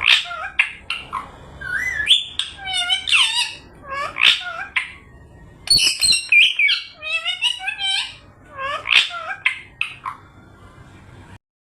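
Pet parrot calling in a rapid run of squawks and chirping whistles that slide up and down in pitch, cutting off suddenly near the end.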